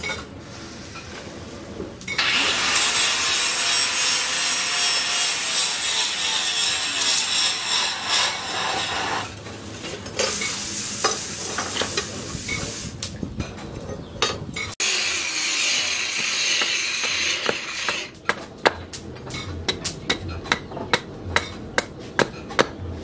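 Hot steel hissing and sizzling as it is quenched in a trough of water. Near the end this gives way to a run of sharp hammer knocks on wood, about two a second.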